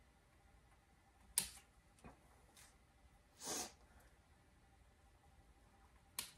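Small pruning scissors snipping Benjamina ficus leaves and shoots: a sharp snip about a second and a half in, a faint one just after, and another near the end. A short soft rush of noise comes in the middle.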